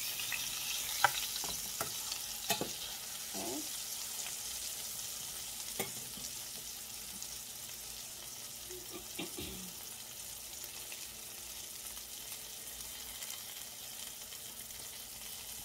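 Plant-based burger patties frying in a stainless steel skillet: a steady sizzling hiss that eases slightly over time. A few sharp clicks in the first six seconds, the metal spatula knocking against the pan.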